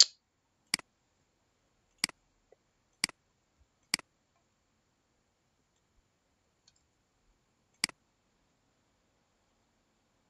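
Computer mouse button clicking while points of a freeform line are placed on a slide. There are six sharp clicks at uneven intervals, most heard as a press followed by a softer release. The last comes about eight seconds in.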